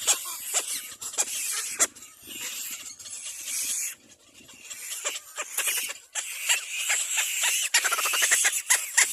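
Little black cormorant chicks squealing, a dense high-pitched hissy calling with many short sharp notes. It drops away briefly about four seconds in and comes back louder toward the end.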